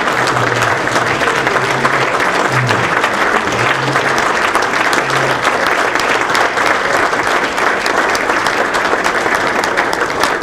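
A large crowd applauding, steady and dense throughout.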